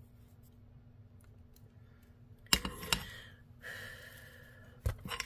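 Sharp clicks and knocks of soldering tools being handled on a workbench during stained-glass soldering: a loud knock about halfway through, then a short hiss, then two more clicks near the end, over a faint steady hum.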